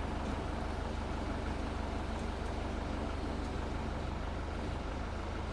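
An engine running steadily at low revs, a constant low hum with no change in pitch.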